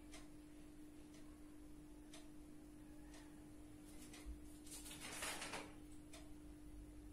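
Faint ticking of a clock, about one tick a second, over a steady low hum, with a brief rustle about five seconds in.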